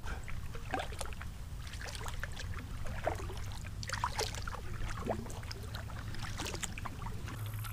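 Kayak being paddled: paddle blades dipping and water splashing and dripping in short, irregular strokes, over a low steady rumble.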